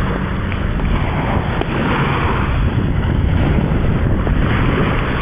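Wind buffeting the microphone over the wash of surf, a loud, steady rumble and hiss.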